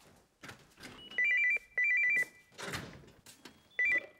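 Landline telephone ringing: a high trilling ring in pairs of short bursts, about a second in, then again near the end. A soft rustle comes between the rings.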